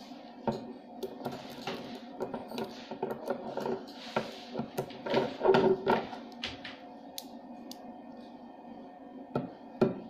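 Tiny 2.5 mm neodymium magnet balls clicking against one another as fingers press and reshape a cube of them, rounding its edges. The clicks are small and irregular, busiest about five to six seconds in, then fewer, with two more near the end.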